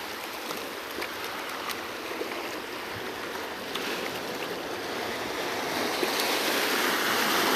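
Seawater washing and swirling over a rock shelf and between boulders, a steady rush that swells louder near the end as a surge of water comes in.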